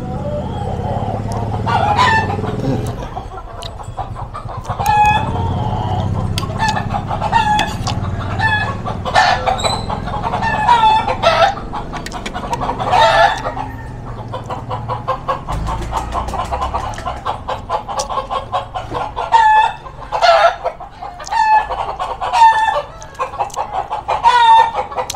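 Chickens clucking, a steady run of short repeated calls with several louder, longer calls among them.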